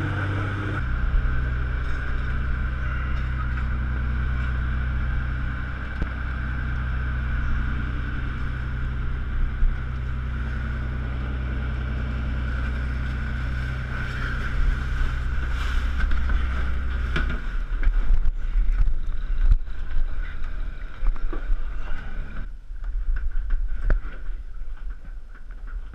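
A boat engine running steadily, its note shifting about a second in and again near the middle, then stopping. After it stops, irregular knocks and clattering take over.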